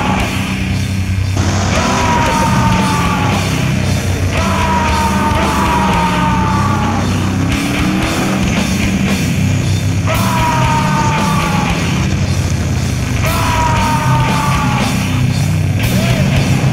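Rock music with a vocal line in short repeated phrases, each falling slightly in pitch, over a steady low bass.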